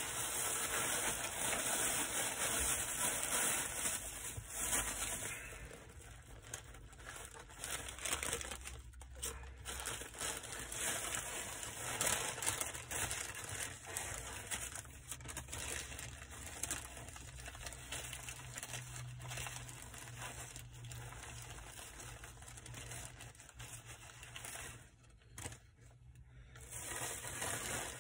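Plastic takeout bag and paper sandwich wrapper crinkling and tearing as they are handled and unwrapped. The rustling is loudest for the first five seconds or so, then softer, with a short lull near the end before it picks up again.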